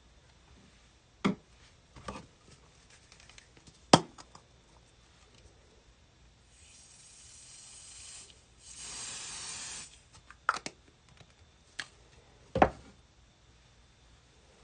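Aerosol can of Spray'n Bond Pattern and Stencil temporary adhesive spraying in two hisses, a fainter one about seven seconds in and a louder one of about a second just after. Several sharp knocks and taps from handling come around it; the loudest are about four seconds in and near the end.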